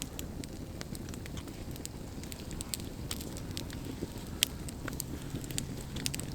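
Wood fire crackling: irregular sharp snaps and pops of burning wood over a low steady rumble.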